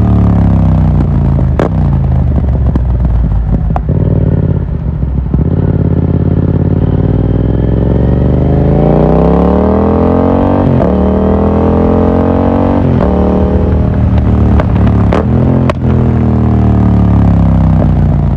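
Yamaha MT-07's parallel-twin engine running through an Akrapovic exhaust. The revs sink slowly, climb again about eight to ten seconds in, then drop back, with several sharp cracks along the way.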